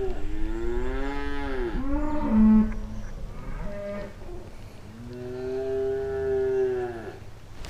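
Cattle mooing: two long, drawn-out moos with a shorter call between them, each bending down in pitch as it ends.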